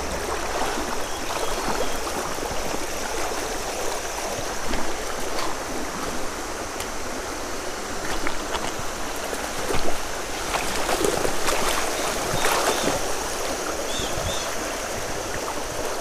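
Creek water running steadily over shallow riffles, with a few brief knocks now and then.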